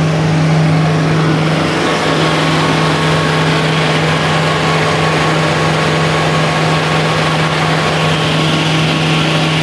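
Kubota MU5502 tractor's four-cylinder diesel engine idling steadily at an even, unchanging pitch, heard close by.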